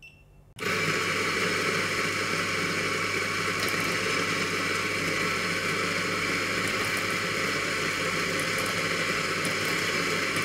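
Eureka Specialita burr grinder starting about half a second in and running steadily, grinding espresso beans into a portafilter. A short electronic beep comes at the very start.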